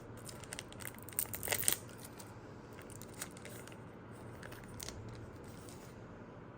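A trading-card booster pack wrapper being torn open and crinkled, crackling most densely at about a second and a half in, then fainter rustling.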